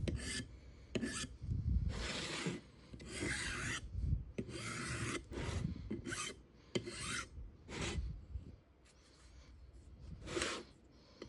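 Hand file stroked along the edges of a cast iron straight edge, knocking off the burrs that machining raised. About ten separate file strokes come at an uneven pace, with a pause of about a second near the end.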